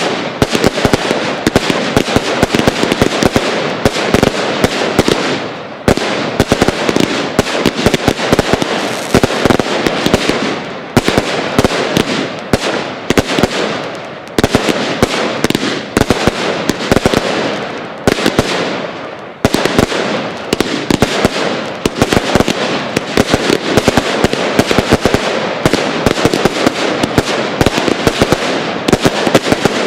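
Aerial fireworks display in full barrage: shells bursting one after another, dense rapid bangs and crackling with louder reports every couple of seconds and no real pause.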